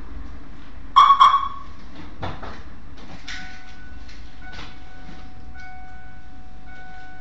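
1995 Mustang GT's 5.0 V8 engine running with a low, steady rumble. About a second in come two loud ringing dings, and from about three seconds a steady tone sounds in pulses roughly once a second, like a car's warning chime.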